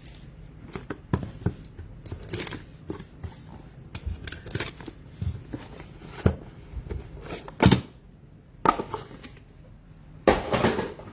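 Trading-card packs being opened and handled at a table: wrappers crinkling and tearing, cards sliding and tapping, in short irregular rustles and clicks with one sharper knock partway through.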